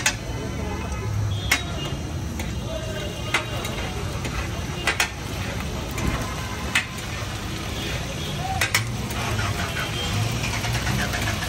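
Metal spatula clanking and scraping on a huge tawa griddle about every two seconds as cow-liver pieces are stirred in oil. The sizzling builds toward the end as the liver starts to fry.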